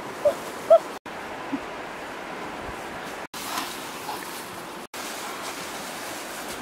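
Puppies give two short, high yelps less than a second in, over a steady rushing background noise that briefly drops out three times.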